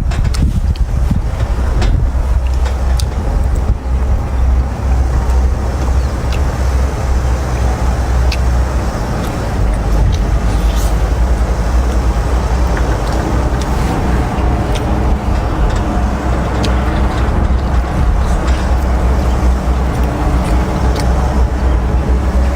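Fishing boat's engine running steadily with a loud low rumble, with a few light clicks.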